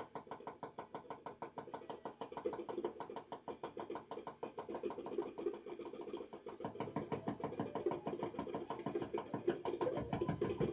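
Quiet electric guitar passage pulsing rapidly and evenly, about nine pulses a second. About six seconds in, a fast high ticking at the same rate joins.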